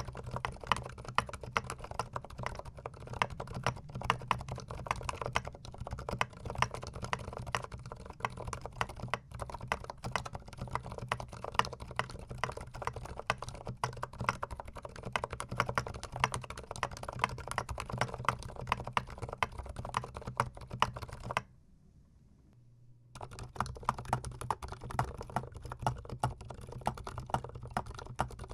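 Close-miked fast typing on a GMMK Pro gasket-mount mechanical keyboard: a continuous run of key clicks that stops for about a second and a half about three-quarters of the way through, then starts again.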